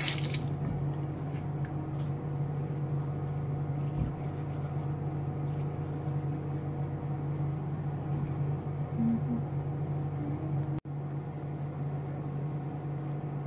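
Manual toothbrush scrubbing teeth over a steady hum with a few fixed tones. Running tap water cuts off just at the start.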